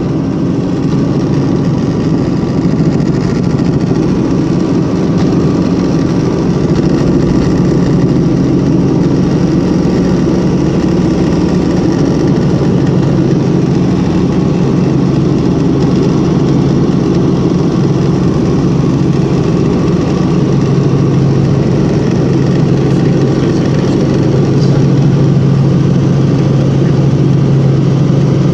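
Helicopter in flight heard from inside the cabin: the steady, loud drone of engine and rotors, with a low hum that grows stronger about two-thirds of the way through.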